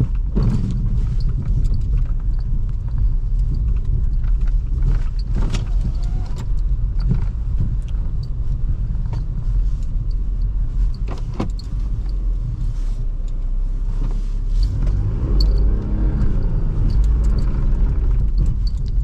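2005 Toyota Highlander's 3.3 L V6 driving on snow with snow mode off: a steady rumble of engine and tyres with scattered clicks and knocks, and about fifteen seconds in the engine revs rise and then fall again.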